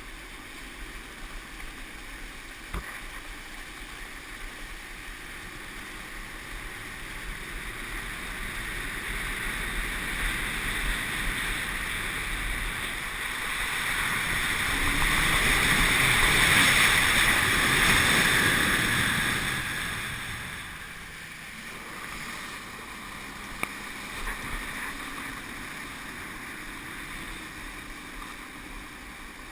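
Rushing water spray and wind buffeting a helmet-mounted action camera on a water skier under tow, a steady hiss that swells to its loudest around the middle, as the skis cut through the wake, then settles again.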